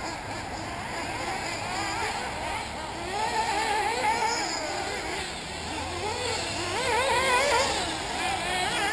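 Several 1/8-scale nitro buggies' small two-stroke glow engines buzzing at high pitch, revving up and down as the cars accelerate and brake around the track, with the loudest surge about seven seconds in.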